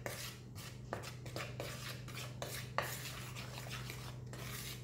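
Metal teaspoon stirring dry flour mixture in a plastic bowl: soft irregular scraping with light taps and clicks of the spoon against the bowl.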